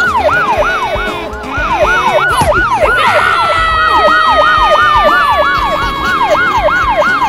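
Rapid warbling siren sound effect, its pitch rising and falling about three times a second; a long, slowly falling whistle-like tone joins about three seconds in.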